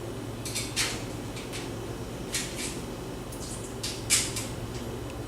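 Metal washers and nuts clinking and clicking against the bolts and platform as they are slipped on by hand, several short light clicks with the sharpest about four seconds in.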